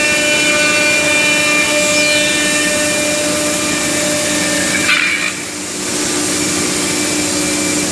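CNC wood router's spindles running and cutting wood: a steady whine of several tones over the rushing noise of the cut. About five seconds in there is a short flare, then the cutting noise drops for about a second before picking up again.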